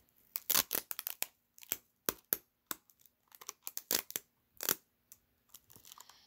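Clear sticky tape being pulled off a dispenser roll in a quick run of short crackling rips as it is wrapped around the ball, thinning out near the end.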